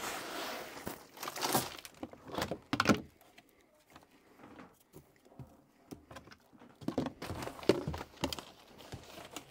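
Irregular knocks and thuds mixed with rustling. They come in a cluster over the first three seconds and again from about seven seconds in, with a quieter stretch between.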